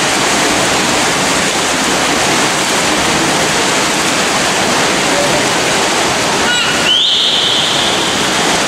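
Swimmers splashing through a freestyle race in an indoor pool hall: a steady, loud rush of water noise. About six and a half seconds in come a few short high chirps, then a high, steady whistling tone that holds for about a second and a half.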